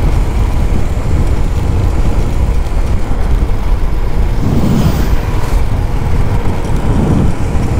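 Motorcycle riding noise: a steady, loud wind rush over the camera's microphone with the bike's engine running underneath.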